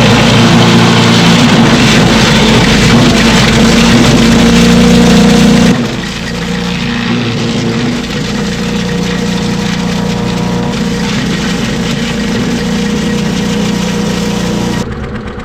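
Gas-powered wood chipper running loud, with a harsh chipping noise as branches are fed through; about six seconds in it drops abruptly to a quieter steady engine hum, and steps down again near the end.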